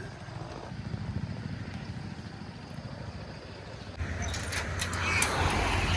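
A vehicle engine running with a steady low rumble, stepping up in level about four seconds in, with a few clicks and knocks after.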